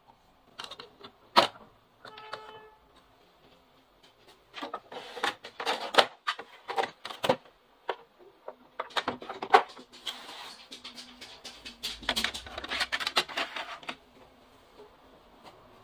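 Hard plastic clicks, knocks and scraping from the trays, covers and document feeder of a Brother MFC-T4500DW inkjet printer being opened, pulled out and pushed back by hand, in uneven clusters. A short tone sounds a little after two seconds.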